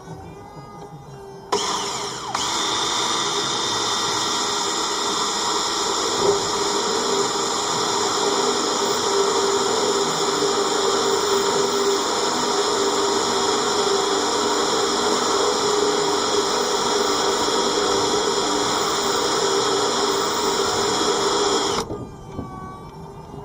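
Electric drill running steadily for about twenty seconds as it bores a hole through the narrowboat's steel gunnel for a through-hull fitting. It starts about a second and a half in and cuts off near the end.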